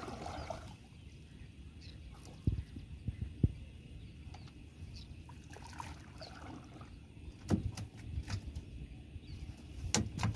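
A wet cast net being hauled by hand into a small boat: water splashing and dripping off the net, with several sharp knocks against the hull.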